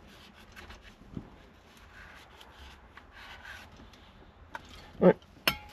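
Microfiber cloth wiping a freshly sanded steering wheel, a faint soft rubbing, then a loud knock and a sharp click with a brief ring near the end.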